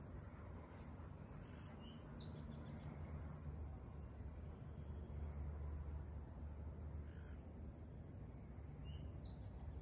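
Steady high-pitched chorus of crickets, with a low steady rumble underneath. A few short chirps come about two seconds in and again near the end.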